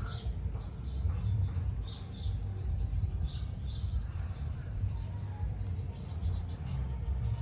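Small birds chirping: a dense run of quick, high, short calls repeating throughout, over a steady low rumble.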